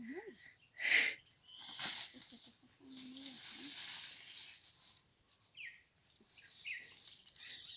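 Leaves and branches rustling as fruit is picked from an orange tree, in a few short bursts and one longer rustle, with a couple of short bird chirps near the end.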